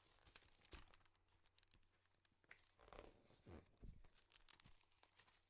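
Faint paper rustling and small clicks of a picture book being handled, a page being turned.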